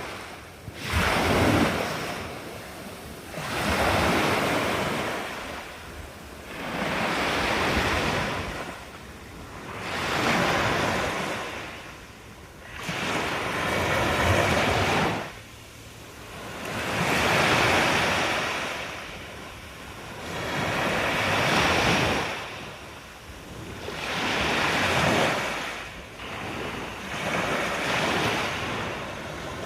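Sea waves breaking and washing on the shore, each one swelling up and fading away about every three seconds.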